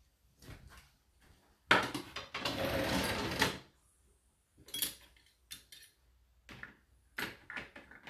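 Whirlpool dishwasher's top cutlery tray being slid out on its runners, rattling for about two seconds, followed by a few short clicks and clinks of cutlery being handled in the tray.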